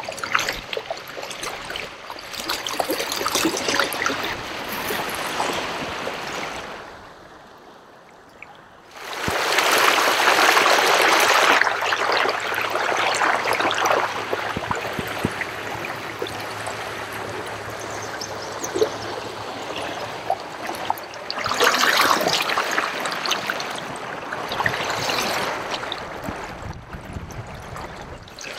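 Water rushing and splashing along a canoe's hull and wake as it runs under power. The sound dips quiet about seven seconds in, then comes back suddenly louder about nine seconds in.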